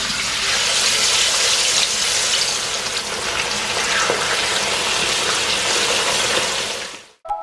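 Whole red snappers frying in hot oil in a wok: a steady, loud sizzle and bubbling of the oil that cuts off near the end.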